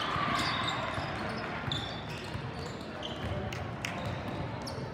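Basketball game in a gym: a ball bouncing on the court, short high squeaks of sneakers, and spectators talking.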